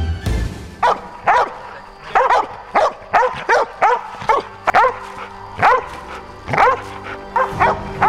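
Search-and-rescue yellow Labrador retriever barking again and again, starting about a second in, about one sharp bark every half second, some in quick pairs: the dog's bark alert beside the missing person it has found. Faint music runs underneath.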